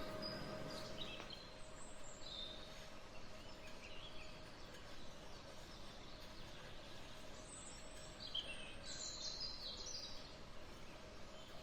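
Faint bird chirps over steady background noise and a low hum, in two clusters: one near the start and another about two thirds of the way in.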